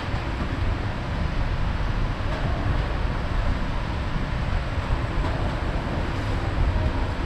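Steady background rumble with an even hiss.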